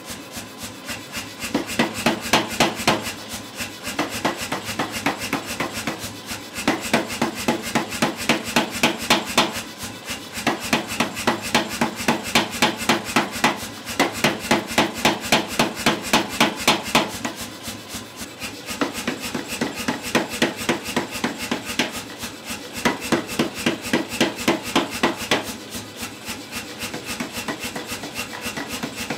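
Say-Mak mechanical power hammer pounding a red-hot steel bar with rapid, evenly spaced blows, drawing it out to a taper. The blows come in runs of a few seconds with short pauses between them, and are lighter near the end.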